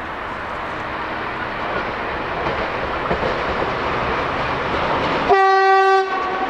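Diesel locomotive hauling a freight train of flat wagons draws closer, its engine and wheels growing steadily louder. About five seconds in it gives one short, single-note horn blast, the loudest sound.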